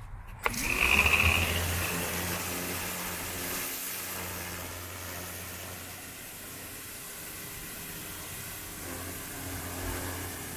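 Greenworks 1700 PSI electric pressure washer starting up about half a second in, its motor rising in pitch as it spins up. It then runs steadily with a hum under the hiss of the water spray.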